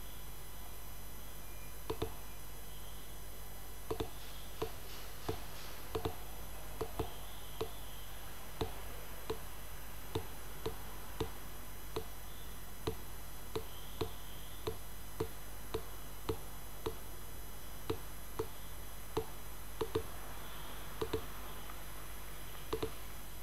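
Computer mouse button clicking, roughly once a second and sometimes in quick pairs, as pen-tool anchor points are placed one after another. A steady faint hum runs underneath.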